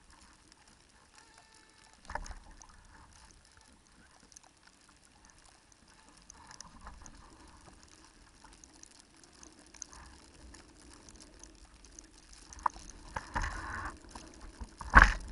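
Small sailing dinghy moving through the water: a faint steady wash of water along the hull, a single knock about two seconds in, then louder low rumbles and thumps building near the end.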